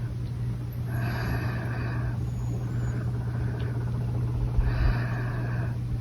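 A small dog snoring in its sleep: three raspy breaths, each about a second long, come at intervals of roughly two seconds. A steady low hum runs underneath throughout.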